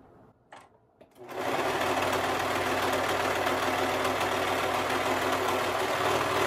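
Brother 1034D serger starting up about a second in and then running at a steady speed, stitching a test seam along a fabric edge.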